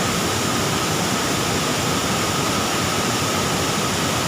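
Steady rushing of a waterfall's falling water, an even wash of noise, with a faint steady high tone above it.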